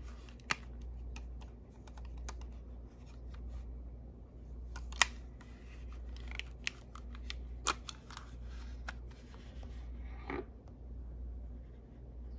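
Sony WM-EX610 cassette Walkman handled in gloved hands: a scattering of sharp plastic clicks and taps, then a short scraping sweep about ten seconds in as its cassette door swings open, over a steady low hum.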